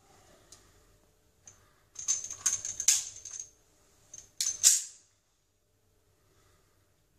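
Metallic clicks and clacks of a Steyr M9 9mm pistol being handled and readied to fire, in two short clusters with a bright ringing, the second ending in a sharper clack.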